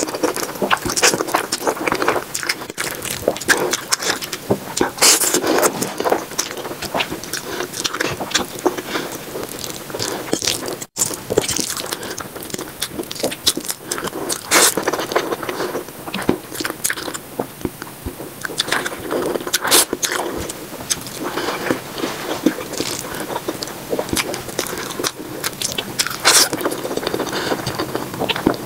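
Close-miked eating sounds played at triple speed: black bean noodles slurped and chewed in quick, irregular bursts, with a fork scraping on a metal plate.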